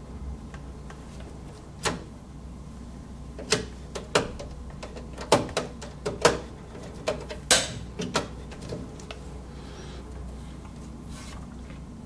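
Sharp clicks and knocks of a plug and a DVI-D to HDMI adapter being handled and pushed into the ports at the back of a PC tower, about a dozen of them scattered through the middle of the stretch, over a steady low hum.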